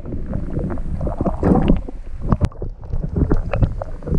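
Water sloshing and gurgling around an action camera held under the lake surface, muffled, with many irregular knocks and clicks.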